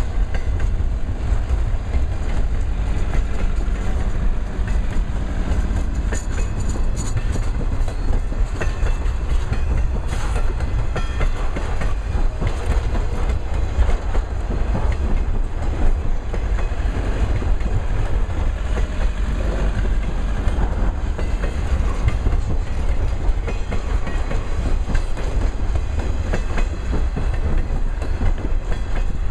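Cars of a double-stack intermodal freight train rolling steadily past: a continuous rumble of steel wheels on rail with clickety-clack from the wheels.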